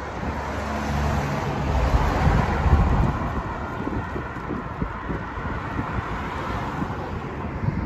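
A car driving past on the road, its tyre and engine noise swelling to a peak about two to three seconds in and then fading. Wind buffets the microphone throughout.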